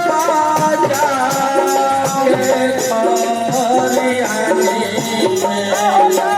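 Instrumental passage of a Bhojpuri purvi folk song: a gliding melody over a steady percussion beat.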